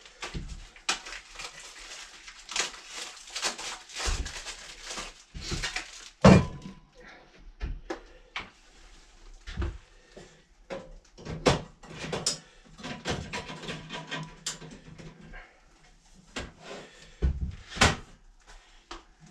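Clicks, knocks and clatter of a portable butane burner being set up on a wooden counter, with its gas canister being fitted and the stove being handled. The loudest knock comes about six seconds in.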